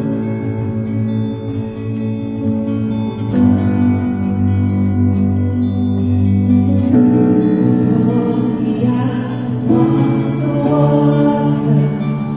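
Slow worship song: sustained chords that change every few seconds, a soft steady beat of high cymbal taps, and voices singing.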